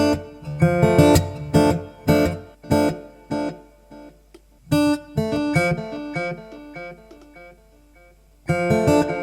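Acoustic guitar played through the Elite Acoustics D4-8 acoustic amplifier. It strums chords for about three seconds, then picks softer single notes that die away almost to nothing, and strong strumming comes back near the end.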